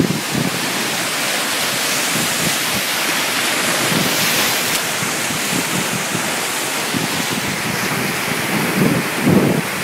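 Steady rushing of sea surf, with wind buffeting the microphone in a few low gusts near the end.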